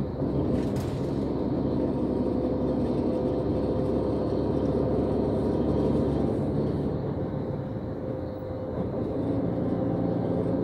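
Cabin noise inside a moving coach bus on the motorway: a steady low drone of engine and tyre noise with a steady hum.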